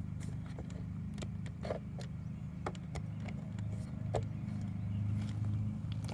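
Steady low hum of an idling vehicle engine, swelling slightly after about four seconds, with scattered light clicks and taps.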